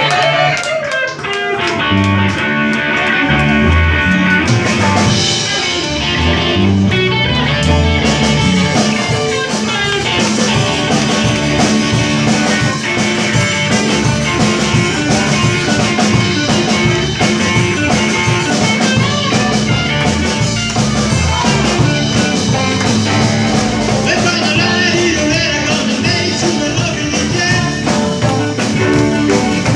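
Live band playing rock and roll: electric guitars and a drum kit over a steady beat, heard from the audience in a small club.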